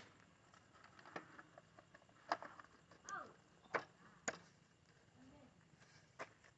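Faint, scattered clicks and knocks, about half a dozen, with a short squeak a little after three seconds in, of tools and parts being handled during a motorbike headlight repair.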